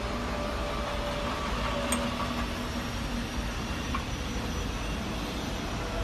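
Steady machine hum and hiss of a running laser cutting machine, with a faint held tone over it. A short, light metallic click about two seconds in and a fainter tick about four seconds in, as the cut aluminium part is handled and set down.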